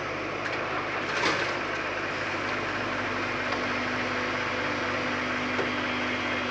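Tata Hitachi excavator's diesel engine running steadily, with one short knock about a second in and a steady low hum that joins about three seconds in.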